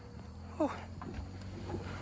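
Pickup truck engine idling with a low, steady hum. About half a second in, a short, loud call falls in pitch.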